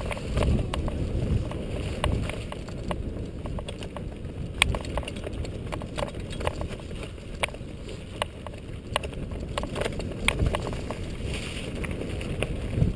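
A mountain bike riding down a dirt and gravel trail: a steady low rumble of tyres on the ground, with frequent sharp rattles and clicks as the bike goes over bumps and stones.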